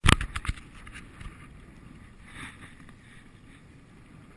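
Sea water washing against a kayak's hull with wind on a GoPro microphone, opening with a quick run of sharp knocks.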